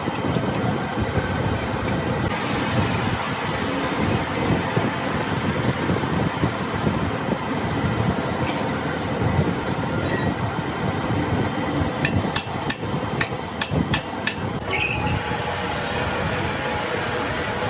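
Hammering and clatter of metal on metal on truck axle parts, with a quick run of sharp strikes near the end.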